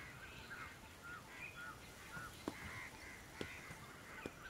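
Birds calling faintly: a run of short, hooked chirping notes repeated several times a second. Three soft taps come in the second half, about a second apart.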